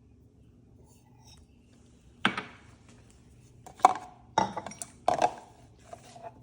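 Four clattering knocks and clinks of kitchen items being handled and set down on a counter, each with a short ring.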